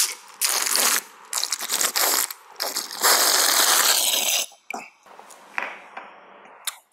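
Loud slurping sips of an iced drink in a series of short noisy sucks, then one long sip about three seconds in, followed by a few fainter slurps.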